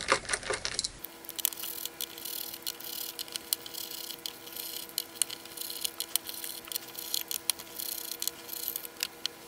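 Small screwdriver unscrewing the tiny steel screws from an aluminium enclosure lid, with many irregular light metallic clicks and ticks as the screws turn out and are set down. A faint steady hum lies underneath.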